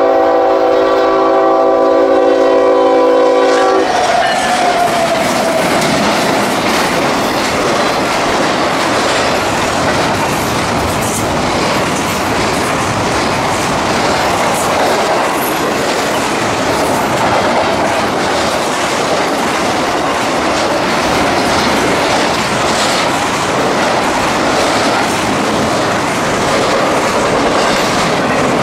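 Freight locomotive's multi-chime air horn blowing for about the first four seconds, dropping in pitch as it cuts off. Then a fast double-stack intermodal train runs past close by: steady wheel-on-rail noise with repeated clicks of wheels over the rail joints.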